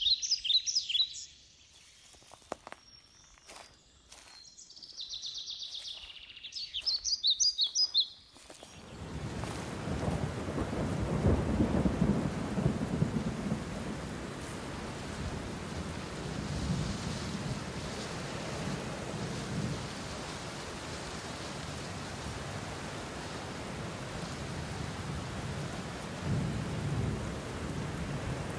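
Songbirds chirping and trilling, with quiet gaps between. About eight seconds in, the sound changes abruptly to a steady rushing hiss with low rumbles that swell and fade several times.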